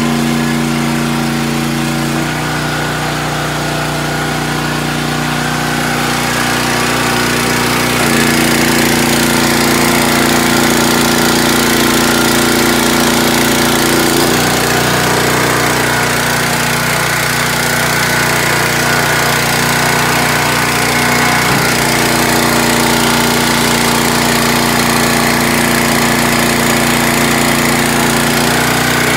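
Small gasoline engine of a Champion 37-ton log-splitter-type tire doubling machine, running steadily. Its note changes between about two and eight seconds in, then settles again.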